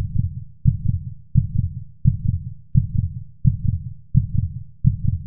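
Heartbeat sound effect: deep double beats, lub-dub, repeating steadily about once every 0.7 seconds.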